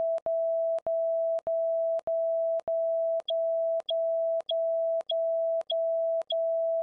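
Censor bleep: a run of beeps at one steady mid pitch, each about 0.6 s long and joined by short clicks, covering a long string of swear words.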